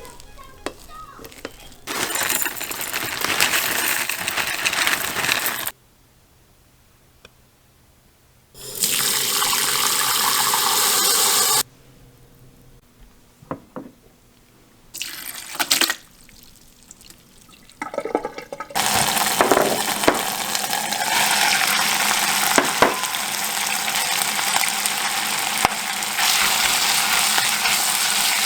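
Water running from a kitchen tap in several separate stretches, starting and stopping abruptly, with a few knocks between them.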